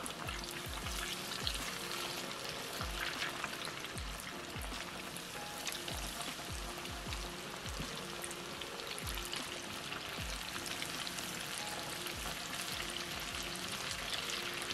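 Breaded rabbit pieces deep-frying in hot oil in a cast-iron pot: a steady, dense crackling sizzle full of small pops.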